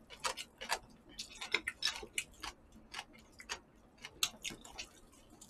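Eating sounds, close up: a scatter of short, irregular clicks and smacks of chewing jokbal (braised pig's trotters) and of chopsticks handling the food.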